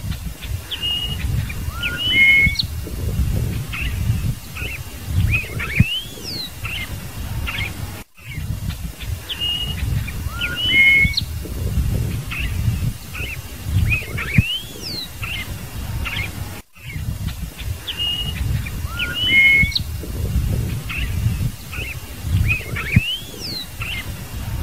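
Scarlet-headed blackbird singing: a phrase of clear whistled notes with short rising and falling slides, repeated as a loop about every eight and a half seconds with a brief gap between repeats, over a low rumble.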